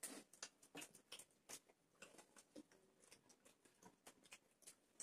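Faint, irregular clicks and smacks of people eating with their hands: chewing and tearing butter naan.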